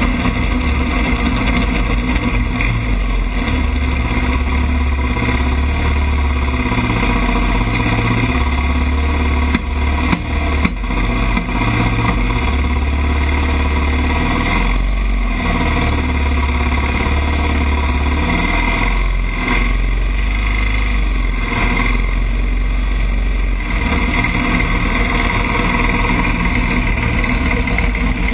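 Sport ATV (quad) engine running hard under throttle, its note stepping up and down every few seconds with throttle and gear changes. Near the end, water spray splashes over the machine as it drives into the water.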